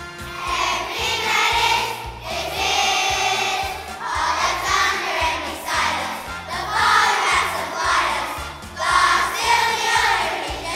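Children's choir singing a song in sung phrases over an instrumental accompaniment with a stepping bass line.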